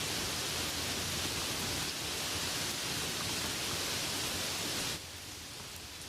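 Light rain falling steadily, an even hiss. About five seconds in it abruptly becomes quieter and stays so.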